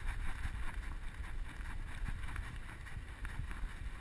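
Rumbling and rustling from a GoPro camera strapped to a running puppy, jostled with every stride, with a stream of light, irregular taps.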